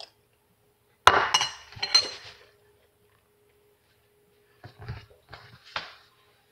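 Spoon and bowl clinking together twice, a sharp ringing clink about a second in and a smaller one just after, followed by a few softer knocks about five seconds in.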